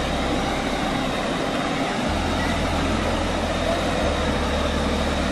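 Steady rushing of a small waterfall pouring into a rocky pool.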